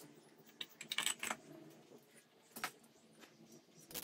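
Light metallic clicks and clinks as the finned valve cover is seated on a BMW R100 boxer engine's cylinder head and its centre nut is run in with a nut driver. There are a handful of separate clicks, with a quick cluster about a second in.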